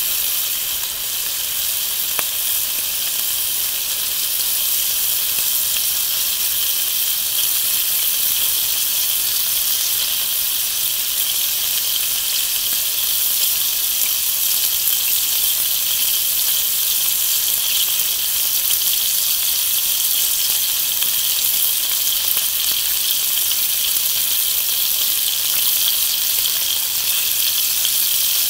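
Bacon frying in a skillet over a small wood fire, a steady sizzle.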